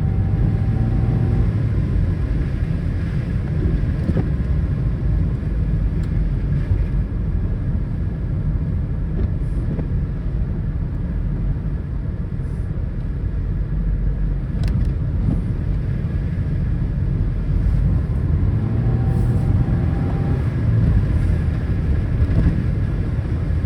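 Car driving, heard inside the cabin: a steady low rumble of engine and road noise with a few faint ticks.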